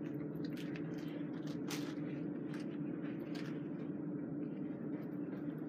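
A steady low hum with scattered light rustles and clicks of gear being handled.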